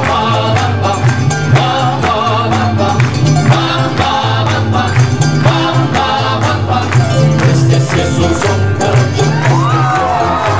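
Mariachi band playing live: harp, violins and strummed guitars over a steady bass line, in a fast, even rhythm.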